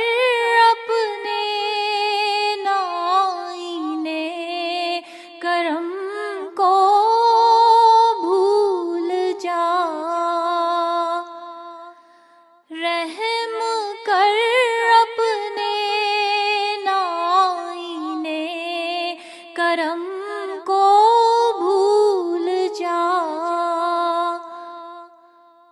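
A woman's voice singing an Urdu dua with no instruments heard, in long ornamented lines that slide between notes. Two long phrases, with a brief pause about halfway, the second fading out near the end.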